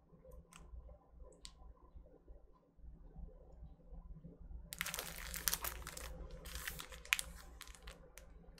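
Plastic shrink wrap on a sealed vinyl LP crinkling and crackling as the record is handled and turned over. The crinkling starts about five seconds in, after a few faint ticks.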